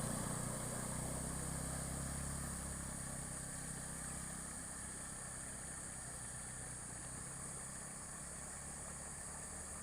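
Vehicle engine running, a steady low hum that fades gradually over several seconds, over a constant high-pitched hiss.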